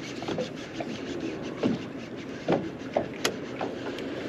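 Baitcasting reel being cranked while fighting a hooked fish, with rubbing handling noise and a few irregular dull knocks and one sharp click about three seconds in.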